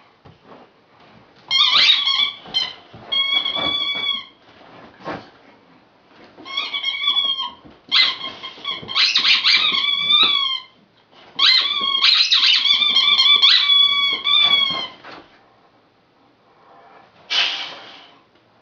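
A dog's squeaky toy squeaking in repeated runs as a boxer chews and squeezes it. The squeals are high and steady in pitch, start and stop abruptly, and come in several long bursts with short quiet gaps.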